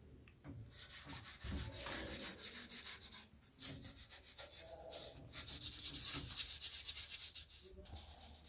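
A scratchy, rapidly pulsing rubbing noise in two long stretches, with a short break about three seconds in.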